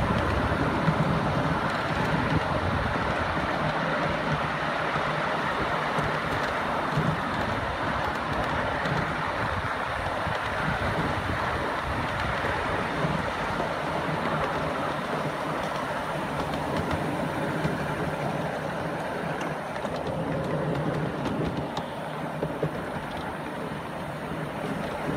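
A 7¼-inch gauge ride-on miniature railway train running steadily along its track, the carriage wheels rumbling and clicking on the rails.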